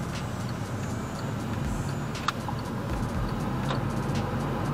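Car running and rolling through a left turn, heard from inside the cabin as a steady low engine and road hum, with one sharp click about two seconds in.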